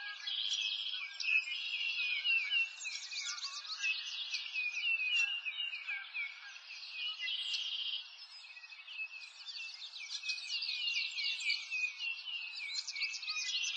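A chorus of birds chirping and singing, many quick high chirps overlapping without pause, over a faint steady hiss.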